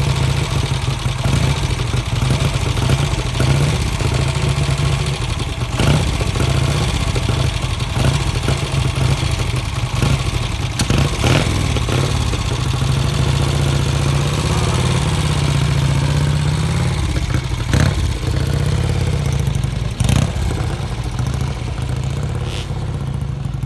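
A vintage motorcycle engine running steadily, swelling for a few seconds past the middle, with a few sharp knocks over it.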